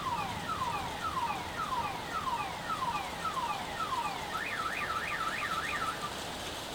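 Car alarm cycling through its tones: a run of falling whoops, about two a second, for roughly four seconds, then a fast up-and-down warble for the last two seconds.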